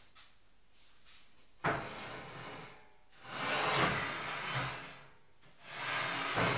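Hand-made sheet-metal motorcycle gas tank being handled on a bare frame: a sharp knock about one and a half seconds in, then two longer scraping rubs of the tank against the frame tubes.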